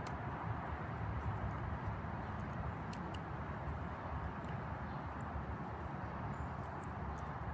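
Steady outdoor background noise with a low rumble and a few faint clicks scattered through it.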